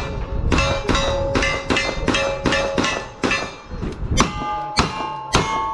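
Rapid gunshots at steel targets, each hit followed by a ringing clang from the struck plate, with different plates ringing at different pitches. About a dozen fast shots come first, then after a short pause three slower ones.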